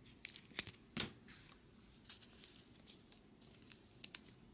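Bowman Chrome baseball cards being handled and slid against one another: quick, light clicks and rustles in two clusters, about a second in and again near the end.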